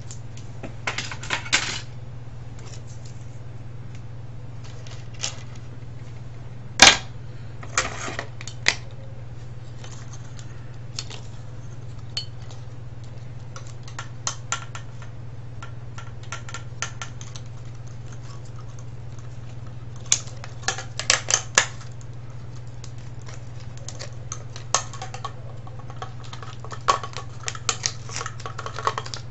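Hard plastic casing pieces and parts of a cordless phone being handled and set down, scattered clicks and clatters, with one sharp knock about seven seconds in.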